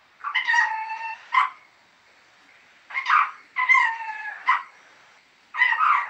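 Pet green parrot vocalizing in four short bursts of high, clear calls, with pauses between them.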